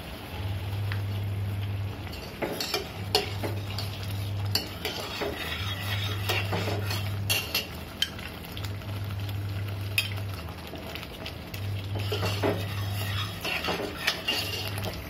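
A steel ladle stirring and scraping in a stainless steel pot of cooking masala, with repeated metal clicks and clinks, as gram-flour batter is poured in and mixed, the masala sizzling faintly underneath. A low hum comes and goes every second or two.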